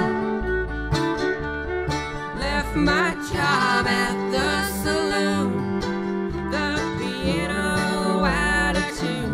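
Live country band playing a song: plucked guitar over a bass line that moves in short, repeated low notes.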